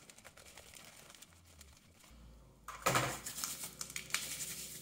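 Clear plastic bag of scenery flock crinkling and rustling as the flock is shaken out by hand, with light scattered ticks of grains; the rustling gets louder about three seconds in.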